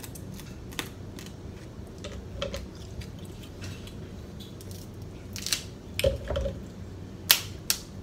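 Snow crab leg shells cracking and snapping as they are broken apart by hand: a scatter of sharp cracks, with the two loudest close together near the end.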